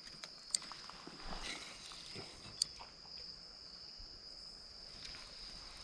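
Crickets trilling in one steady high-pitched tone, with two sharp clicks, about half a second and two and a half seconds in, and faint rustling.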